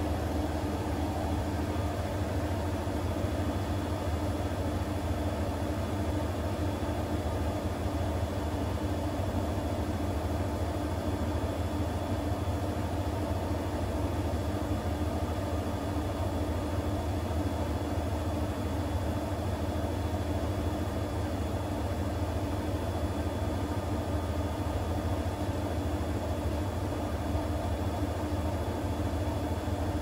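Siemens washing machine in its intermediate spin after the first rinse: drum and motor running at a steady speed, a constant low hum with a thin high whine over it.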